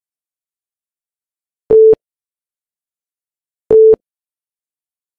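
Countdown timer beeping twice, two seconds apart: short single-pitch beeps, one for each number of the countdown, with silence between them.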